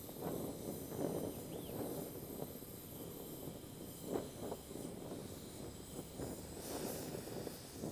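Gas brazing torch flame hissing steadily, its level wavering, as it heats a broken cast iron plane handle for bronze brazing.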